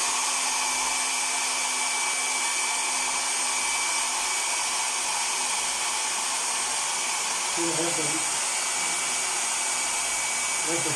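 Hair dryer running steadily, a constant rush of blown air with a faint high whine. It is being test-run after the broken heating-element wire was rejoined, and is now blowing hot air again.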